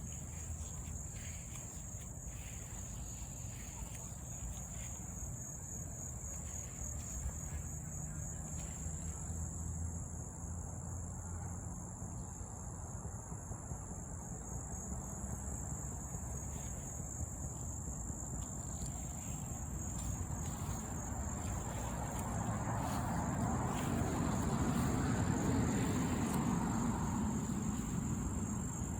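A steady, high-pitched chorus of insects, such as crickets, trilling without a break. In the last third a low, rushing sound swells up, peaks, and eases off again.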